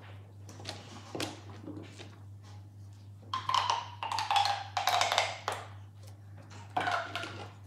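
Light taps and clicks of small plastic fidget toys being handled. About three seconds in, a child's voice joins with a few seconds of wordless vocalising.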